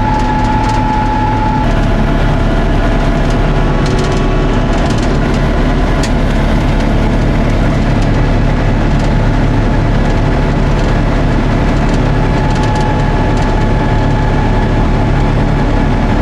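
Tractor engine running steadily with a John Deere 535 round baler working, a loud even drone with a steady whine and a few light clicks from the baler's mechanism.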